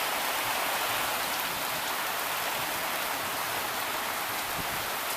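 Heavy rain coming down steadily, a dense even hiss without a break.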